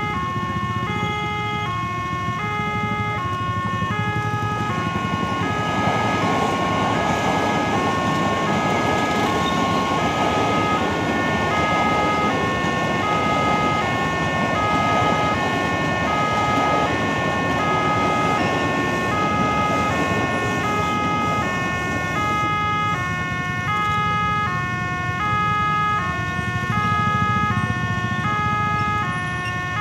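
Railway level-crossing warning alarm sounding a steady alternating two-tone signal, about one high-low cycle a second, which means the barrier is down for a train. A KRL Commuter Line electric train rumbles past from about five seconds in until about twenty seconds in.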